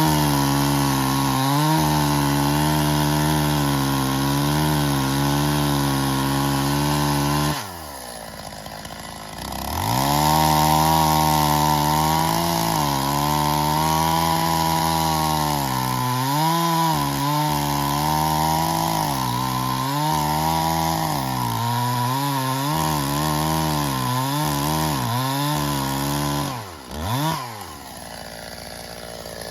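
Stihl MS 270 two-stroke chainsaw cutting birch logs at full throttle, its pitch wavering as the chain bites. About a quarter of the way in it drops to idle for two seconds, then revs back up and cuts again. Near the end it blips once and settles to idle.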